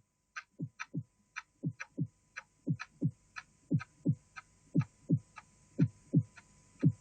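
Heartbeat-like pulse effect: pairs of low thumps that drop in pitch, about one pair a second, with sharp ticks between them over a faint steady hum. The beats grow louder as they go.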